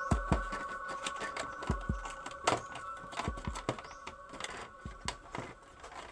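Scattered light clicks and knocks of plastic printer-scanner parts being handled and set down, over faint steady background tones that fade away.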